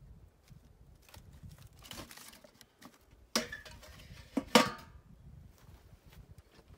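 A metal lid is set down onto a metal raku reduction bin over burning combustibles: a sharp metallic clank about three seconds in, then a louder double clank about a second later, each ringing briefly, with light rustling and crackling between. Closing the lid shuts in the flames so the hot pot is smothered in smoke for reduction.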